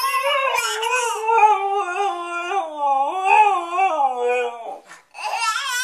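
Husky howling in one long, wavering call that rises and falls in pitch. The call breaks off about five seconds in, and a second howl starts just after.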